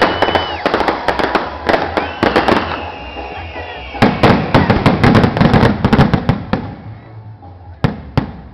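Castillo fireworks tower going off: dense, rapid crackling and popping with whistling tones early on. A second loud spell of crackling comes about four seconds in, then it thins to a few scattered bangs near the end.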